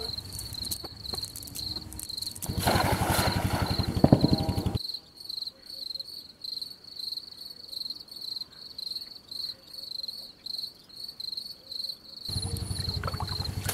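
A night insect chirping steadily in short, even pulses, about two or three a second. About two and a half seconds in, a loud rushing noise lasts a couple of seconds, and near the end water splashes as the cast net is worked in the shallows.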